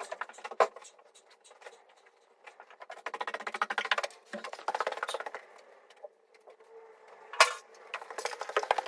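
Scraping, rustling and rapid clicking of things being handled, in spurts, with a sharp knock near the start and a louder one about three-quarters of the way through.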